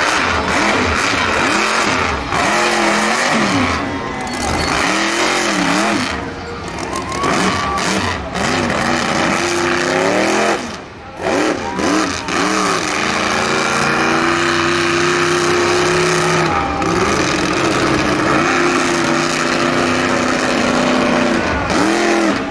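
Monster truck's supercharged V8 engine revving hard, its pitch swinging up and down with each stab of throttle, then held high for long stretches in the second half. It drops away briefly about halfway through.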